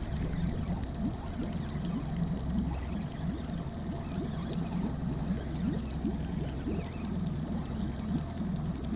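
Water gurgling and lapping around a small fishing boat over a steady low hum, with many short irregular gurgles throughout.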